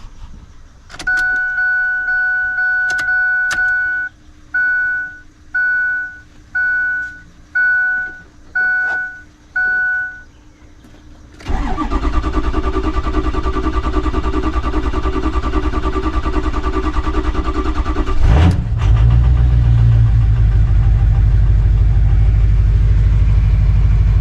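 Ford F-250's dashboard chime sounding, one long tone then a string of short beeps. The starter then cranks the 6.0 L Power Stroke V8 diesel for about seven seconds until it fires and settles into a steady idle, its first start after months of sitting on a low battery.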